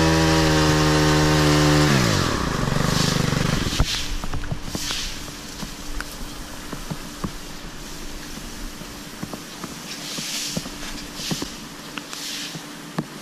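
Stihl KM 90 R KombiMotor's small 4-MIX engine driving the articulating hedge trimmer attachment at full throttle. About two seconds in it falls back to a low idle. Scattered light clicks and leaf rustling follow.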